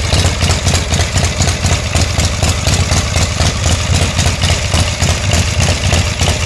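A 98-cubic-inch S&S shovelhead V-twin motorcycle engine idling steadily, with an even, rapid pulsing beat and no revving.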